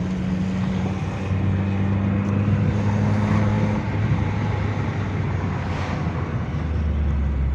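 Chevrolet Chevy's engine and exhaust, fitted with a new muffler and resonator, running steadily on the road; it sounds moderate and discreet. The engine note drops about four seconds in and again near the end as the revs fall.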